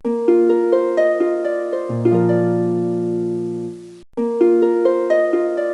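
Background music: a plucked-string melody of quick rising notes over held low notes, looping and starting over a little after four seconds in.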